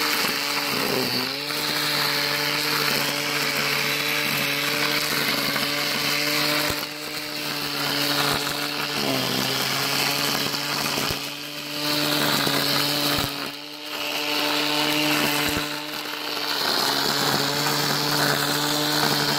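Electric angle grinder, rigged on a pole as a grass trimmer, running at full speed and cutting through grass and weeds: a steady high motor whine over a hiss of chopped grass. The pitch sags briefly and recovers about a second in and again about nine seconds in, as thicker growth loads the motor.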